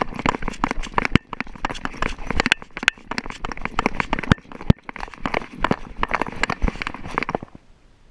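A Schipperke's paws crunching and scuffing on gravel as it trots, heard close up from a camera worn on the dog, with sharp knocks among the footfalls. The footsteps stop suddenly near the end.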